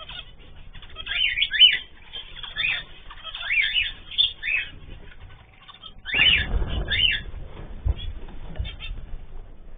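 Caged ornamental birds calling: a string of short, sharp calls that rise and fall in pitch, repeated every half second or so. About six seconds in there is a burst of rustling noise.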